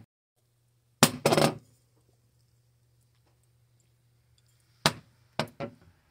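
Sharp clinks of hard objects against a ceramic dinner plate: a quick cluster about a second in, then three more near the end.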